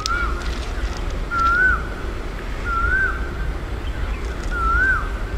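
A bird repeating a short whistled call four times, each note rising then dropping sharply, about every second and a half, over a steady low rumble.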